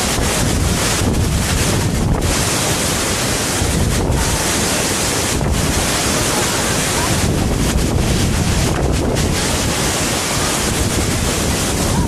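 Waterfall: a loud, steady rush of falling water, with wind noise on the microphone.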